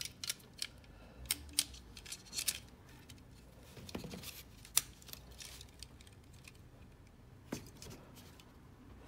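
Faint clicks and snaps of small plastic model-kit parts handled and pressed together as the lion legs of a Super Minipla Voltron figure are fitted to its torso, with a few sharper clicks scattered through.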